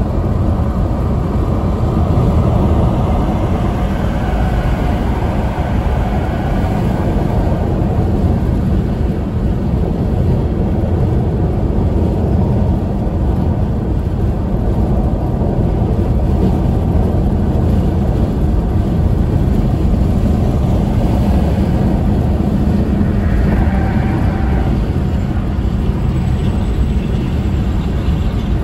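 Steady road noise of a car driving on a highway: a continuous low rumble of tyres and wind that holds even throughout.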